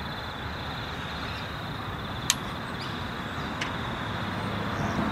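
Steady hum of distant road traffic, with a sharp metallic click about two seconds in and a fainter one later as spark plugs are handled and knocked together.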